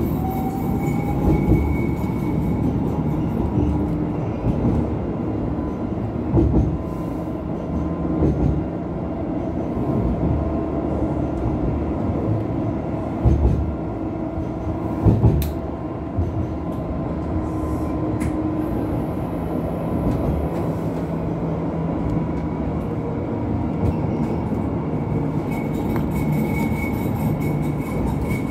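Interior running sound of an Alstom Citadis X05 light rail tram in motion: a steady rumble of wheels on rails with a motor whine, and a few louder thumps along the way.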